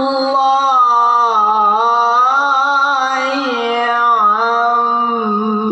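Qur'an recitation in the melodic tilawah style: one male voice chanting long held notes with ornamented pitch turns. The pitch dips a little over halfway through and steps lower near the end.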